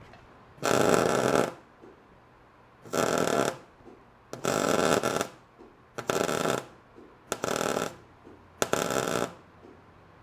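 MIG welder laying a run of short tack welds on steel square tubing: six crackling bursts of under a second each, about one every second and a half. The gun is set hot for tacking.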